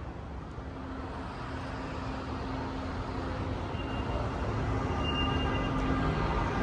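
Vehicle and traffic noise: a steady low engine rumble with a faint hum, growing gradually louder.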